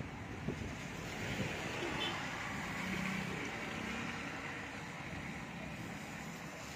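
Steady running noise of a vehicle moving slowly, heard from inside through an open window: engine and tyre noise, swelling a little in the middle.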